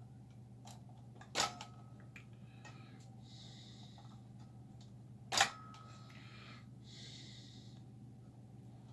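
Two sharp clicks about four seconds apart, each with a brief ring, from tools or parts being handled on a workbench. Between them come a few short, soft hissing scrapes, over a steady low hum.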